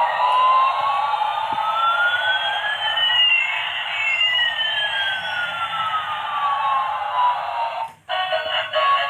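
Light-up toy A380 airliner's electronic sound chip playing through its tiny speaker: a hissing effect with one tone sliding slowly up and another sliding down, crossing midway. It cuts off about eight seconds in, and a beeping electronic tune starts again.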